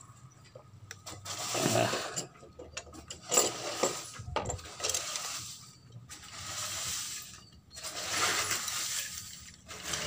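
Hands handling metal motorcycle engine parts while fitting a cylinder head and its cam chain: rubbing and scraping in several swells about a second long, with a few sharp metal clicks.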